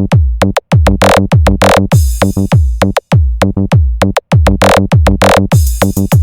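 Electronic battlemix dance music: rapid, hard kick drums, each a deep bass thump sliding down in pitch, with two longer hissing noise sweeps about a second in and near the end.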